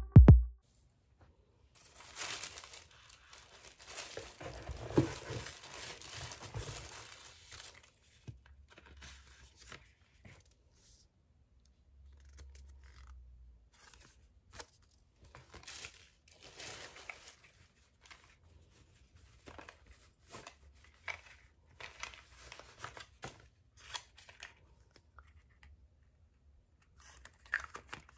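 Paper packaging being unboxed by hand: several seconds of continuous tearing and crinkling of paper, then short scattered rustles and light taps as the box's inserts and a small cardboard product carton are handled.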